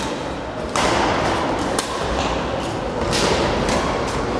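Badminton play in a sports hall: a few sharp racket hits on the shuttlecock and thuds of players' feet on the court floor, over the echoing background din of the hall, which grows louder about a second in.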